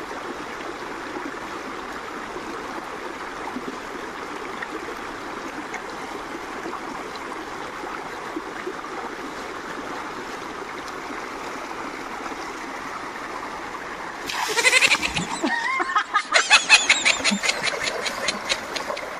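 Stream water rushing steadily over rocks, with splashing from hands working in it. About fourteen seconds in, a loud added comedy sound effect cuts in: a wavering voice-like call, then a run of rapid pulsing to the end.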